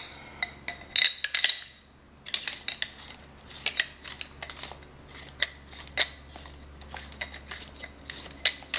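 Light metallic clicks and clinks of a Machine Vapor paintball marker's parts being handled and fitted together, a quick cluster about a second in, then scattered single taps.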